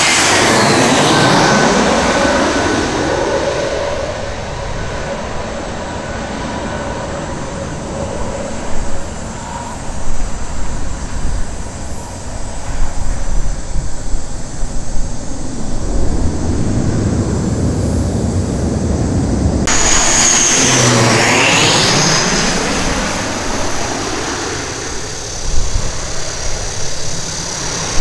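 Airbus A320 jet engines just after passing overhead, the whine falling in pitch and the rumble fading as the jet rolls away down the runway, with irregular louder rumbles through the middle. About two-thirds in the sound cuts abruptly to an ATR 72-600 turboprop on final approach, its engine and propeller drone growing louder as it nears.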